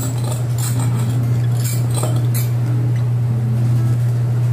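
A spoon or utensil clinking a few times against a bowl as batter is stirred, over a loud steady low hum.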